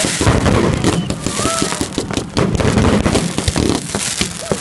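Fireworks going off close by: dense, continuous crackling with many sharp pops, and a few brief whistling glides.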